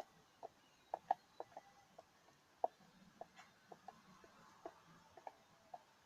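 A spoon stirring flour and milk into a dough, knocking and scraping lightly against its container. The clicks come short and irregular, a few a second.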